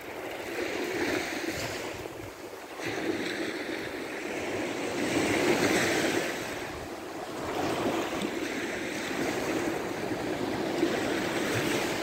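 Small sea waves breaking and washing up a sand beach, swelling and fading every few seconds, with wind on the microphone.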